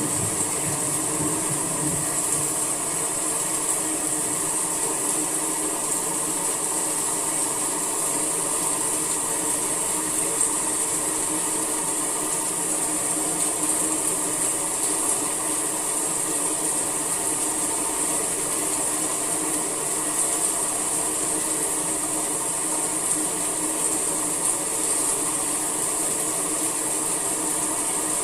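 Steady summer rain falling: an even, unbroken hiss with no pauses or distinct drops standing out.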